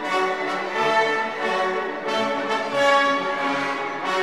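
Orchestral background music, strings and brass playing held notes.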